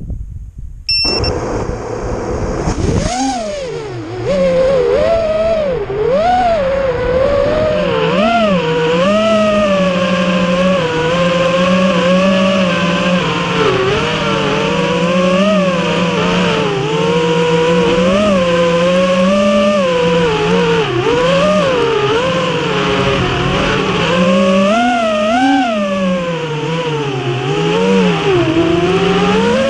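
FPV quadcopter's brushless motors spinning up about three seconds in, then whining, their pitch rising and falling constantly with throttle in flight.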